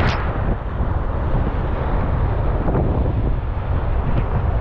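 Wind buffeting the microphone on the beach in a steady low rumble, over the continuous wash of surf.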